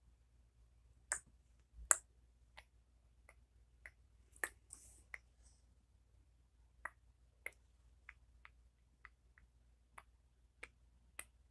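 Light, irregular plastic clicks and taps, about sixteen in all, as a small plastic nail-polish applicator knocks against a plastic Barbie doll during nail painting, with a brief soft hiss near the middle.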